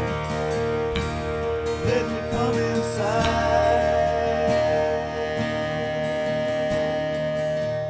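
Instrumental passage of a country-rock song: guitars playing over held chords with a steady beat.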